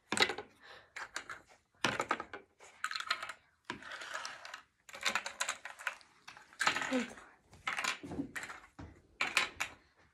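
Hard plastic hexagonal blocks of a tabletop ice-breaking game clicking and clattering as they are set back into the game's plastic frame, in irregular bursts of rapid clicks.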